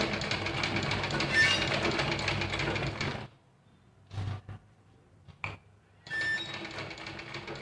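Sewing machine stitching at a steady, rapid pace, stopping about three seconds in. After a pause with a few light knocks, it starts stitching again about six seconds in.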